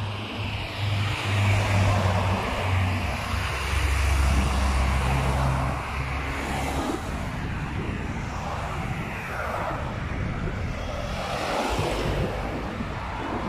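Road traffic on a multi-lane road: cars driving past, with engine and tyre noise swelling and fading as they pass. A low engine hum runs through the first half.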